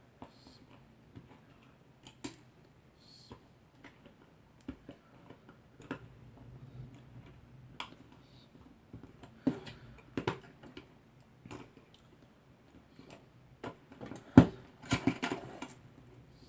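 Scattered clicks, taps and handling noises of hands working Cat6 network cable and small tools, with one sharp, louder click about fourteen seconds in followed by a quick cluster of clicks.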